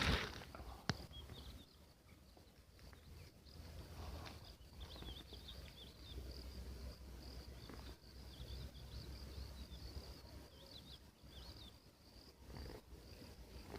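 Faint outdoor nature ambience: a steady, high-pitched insect trill with short scattered chirps over a low rumble. A single sharp click comes about a second in.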